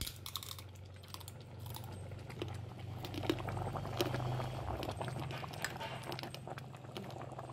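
A pot of curry at the boil, bubbling and popping in many small irregular ticks, over a steady low hum.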